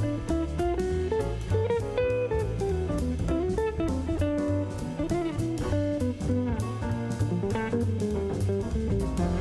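Background music: a guitar-led song, with bass and drums keeping a steady beat.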